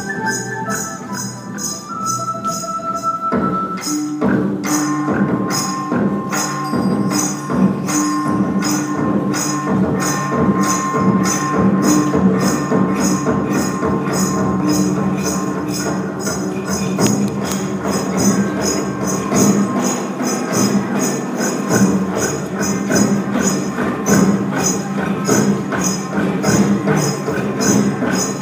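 Traditional Vietnamese music accompanying a water puppet show, with a fast, even percussion beat like a tambourine under long held melody notes and a low drone. About four seconds in, a moving melody gives way to the steady beat and held notes.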